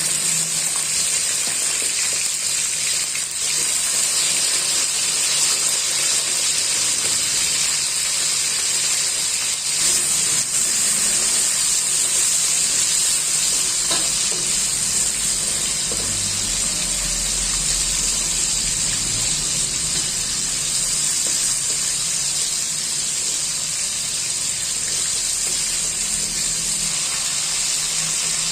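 Whole spice paste ingredients (shallots, garlic, ginger, turmeric, galangal and the like) frying in hot oil in a pan. The oil sizzles steadily while they cook down until wilted.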